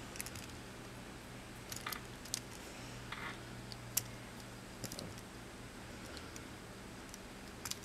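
Scattered light metal clicks and taps from a Gerber MP400 multi-tool being handled, its fold-out implements moved in and out, over a steady low hum.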